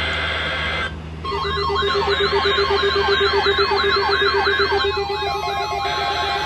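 Electronic alert tones from an emergency broadcast: after a brief drop about a second in, a fast siren-like warble sweeps up and down over a steady tone and a pulsing low tone. About five seconds in the warble fades and a stepped pattern of steady tones carries on.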